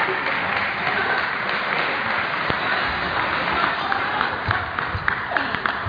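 Table tennis balls clicking sharply off bats and the table, a quick run of clicks near the end, over steady crowd chatter in a sports hall.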